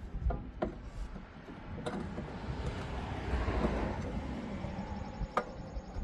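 A few sharp metallic clicks and knocks as a removed rear brake caliper is handled and tucked up under the car. In the middle a rushing noise swells and fades over about three seconds.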